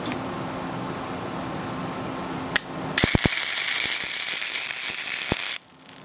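MIG welder arc crackling as wire is built up on the end of a broken-off bolt. A brief spark about two and a half seconds in, then a steady crackle for about two and a half seconds that cuts off sharply. Under it runs a steady shop hum.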